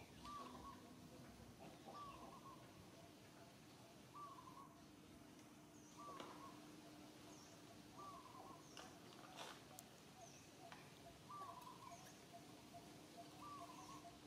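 Faint bird calling: a short rise-and-fall note repeated about every two seconds, over a faint steady hum.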